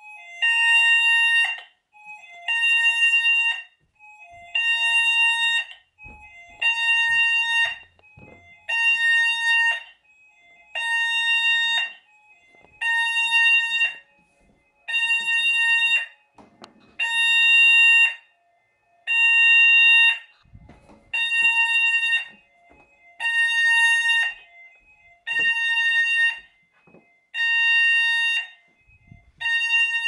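Hochiki addressable fire alarm sounders sounding the pulsed alert tone, set off from the panel. A loud, high, steady beep, about 1.3 seconds on and 0.7 seconds off, repeats every two seconds, with a fainter, lower tone in the gaps.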